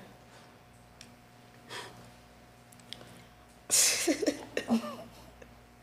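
Mostly quiet room tone, broken about two-thirds of the way in by a person's loud, breathy exhale with a brief voiced sound in it, and a second sharp breath right at the end.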